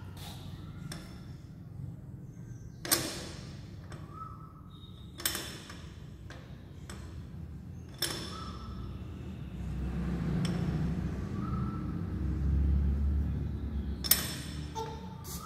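Hands knocking and rattling the door and handle of an old metal box: a few sharp metallic knocks that ring briefly, the loudest about three seconds in and others near five, eight and fourteen seconds, with lighter clicks between. A low rumble swells in the second half.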